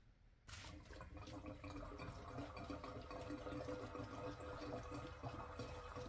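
Gasoline being poured from a plastic gas can into a car's fuel filler, a faint, steady pour that starts about half a second in.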